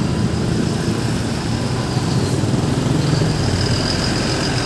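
Road traffic: engines of passing vehicles running, a steady low rumble.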